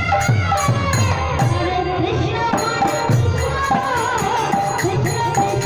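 Kirtan music: a voice singing a devotional melody through a microphone over khol barrel drums with bending bass strokes and small metal hand cymbals keeping a steady beat.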